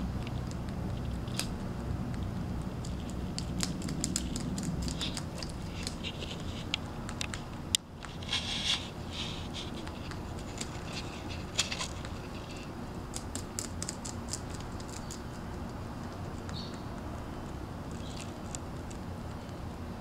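Rabbit gnawing on the willow sticks of its willow tent: bursts of rapid small crunching clicks, with one sharper, louder click about eight seconds in.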